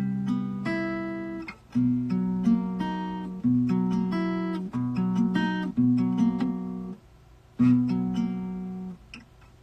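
Acoustic guitar strumming a series of chords, each left to ring for about a second, with a short pause about seven seconds in and the playing stopping near the end: chords being tried out while working out a half-remembered song.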